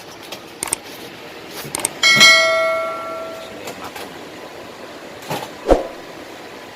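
Metal tools clinking as an engine is taken apart. About two seconds in, a struck piece of metal rings out with a clear bell-like tone that fades over about a second and a half. A few light knocks follow, with one sharp knock near the end.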